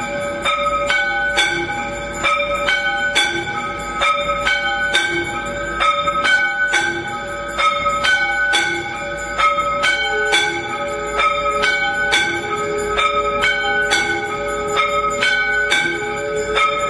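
Temple bells ringing in a steady rhythm during aarti: several bells of different pitches, struck about twice a second.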